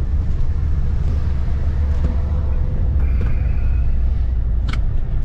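Steady low rumble of road and engine noise heard from inside a moving vehicle, with one short click about three-quarters of the way through.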